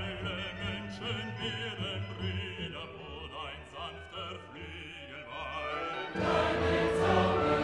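Background classical music: an operatic voice singing with wide vibrato over orchestral accompaniment, swelling suddenly into a louder, fuller passage with choir about six seconds in.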